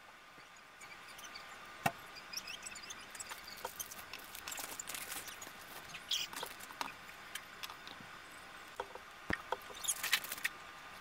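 Faint handling sounds of a plastic 1/6 scale action figure body and its fabric clothes: cloth rustling with scattered small clicks and taps, and a short burst of rustling near the end.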